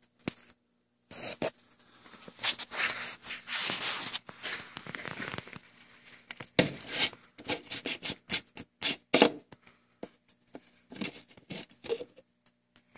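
Plastic reservoir cap being gripped and twisted off by hand: irregular scraping and rubbing with sharp clicks, starting about a second in, dense at first and then more scattered.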